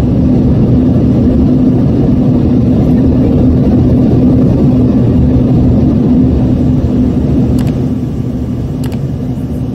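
Steady cabin noise inside an Embraer ERJ-145 regional jet climbing after takeoff: its two rear-mounted Rolls-Royce AE 3007 turbofans and the rush of air past the fuselage, with a steady low hum. The noise eases off slightly near the end.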